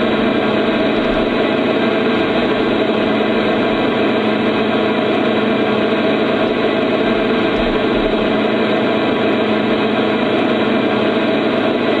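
Sound-fitted Hattons OO gauge Class 66 model locomotive playing its recorded diesel engine sound through its onboard speaker: a steady, unchanging engine drone as the model moves slowly along the track.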